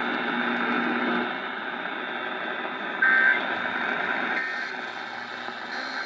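Sangean tabletop radio tuned to 1560 kHz AM, its speaker giving out steady AM static and hiss with a faint thin whine. A short, loud beep about three seconds in.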